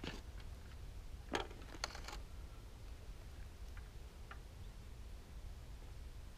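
A few light clicks and taps from a pole rod and line being handled as a small catfish is swung in, a pair close together about a second and a half in and a couple of fainter ticks later, over a steady low rumble.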